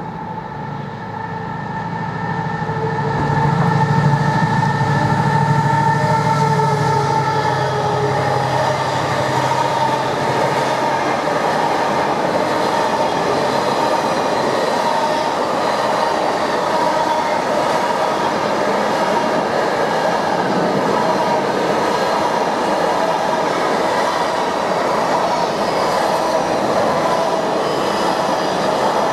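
Freightliner Class 70 diesel locomotive 70015 approaching and passing with its engine running loudly, loudest about four seconds in. Its engine note fades after several seconds, and then a long train of loaded container wagons rolls past with a steady noise of wheels on the rails.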